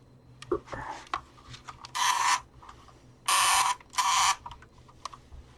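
Black & Decker DustBuster handheld vacuum giving three short harsh buzzes, each under half a second, as it is switched on with its battery refitted, with small clicks between. Its motor does not run up: the vacuum still sounds dead.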